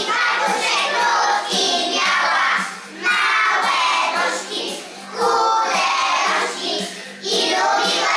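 A group of young children singing a song together, in phrases with short pauses between.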